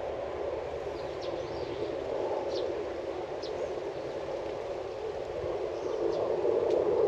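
Outdoor farm ambience: a steady low rushing noise, with short high chirps from small birds several times.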